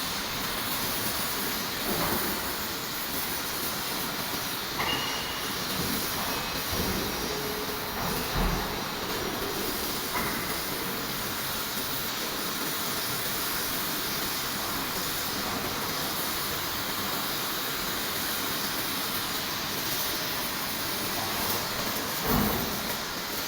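Aluminium melting furnace running on test: a steady hissing noise, broken by a few short knocks, the loudest near the end.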